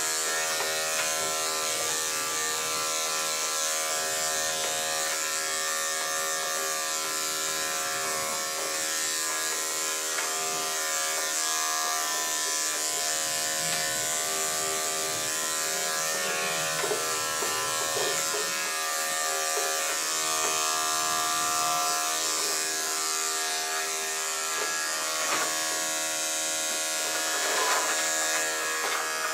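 Corded electric dog grooming clippers buzzing steadily as the blade cuts through a small dog's coat.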